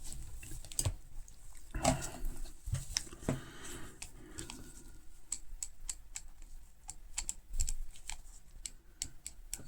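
Hand tools being handled and put down on a hard surface: scattered light clicks and knocks, a few louder ones about two and three seconds in.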